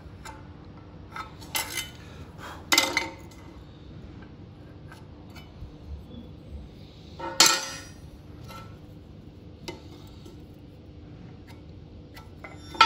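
Steel pieces knocking and clinking against a steel welding table as they are set down and positioned: about four sharp metallic knocks with brief ringing, the loudest about halfway through.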